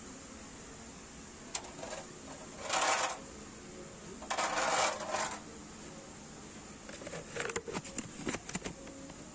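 Glass and charger plates handled on a metal store shelf: a short scraping slide about three seconds in, a longer one around four and a half seconds, then a run of clinks and rattles near the end.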